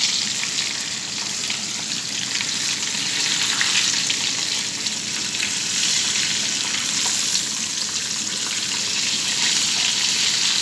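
Breaded chicken pieces frying in hot oil in a pan, a steady sizzle with dense, fine crackling.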